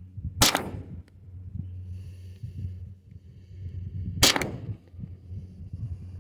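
Two gunshots about four seconds apart, each a sharp crack with a short tail, over steady low wind rumble on the microphone.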